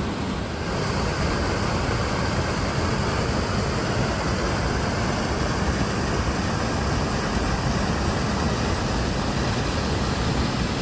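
Brown floodwater pouring in a steady rush over the broken edge of a washed-out road crossing and churning below it, a little louder from about a second in.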